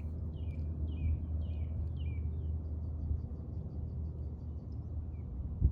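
A bird calling over and over, a short falling chirp about twice a second that fades into fainter high ticks, over steady low wind rumble on the microphone. A single sharp knock comes near the end.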